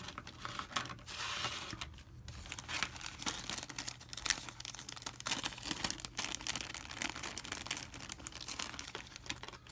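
Clear plastic parts bags crinkling and rustling as they are handled, a continuous run of sharp crackles.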